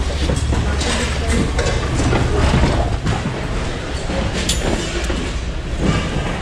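Plastic shopping cart being handled and rolled on a concrete floor: a steady rumble of its wheels, with rattles and clicks from its wire fold-down seat and one sharp click about four and a half seconds in.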